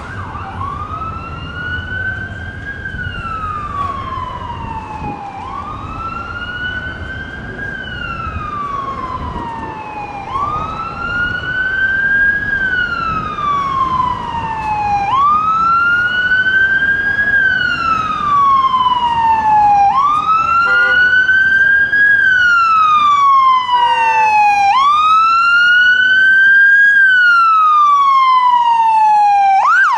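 Ambulance's electronic siren in wail mode, each cycle rising quickly and falling slowly over about five seconds, growing louder as the ambulance approaches on an emergency run.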